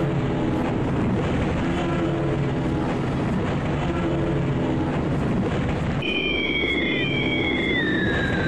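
Propeller aeroplane engine droning steadily as the plane flies over. About six seconds in, a high whistling tone joins and splits in two, one pitch rising and the other falling.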